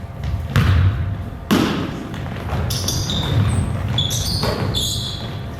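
Basketball bouncing on a gym court, with a couple of loud thuds about half a second and a second and a half in.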